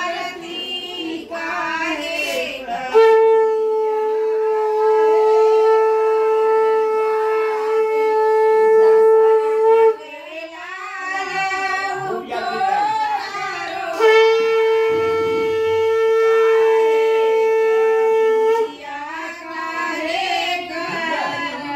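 A conch shell (shankh) is blown twice in long, steady notes, the first lasting about seven seconds and the second about four and a half, as a ritual call in a Hindu puja. Voices singing can be heard before, between and after the blasts.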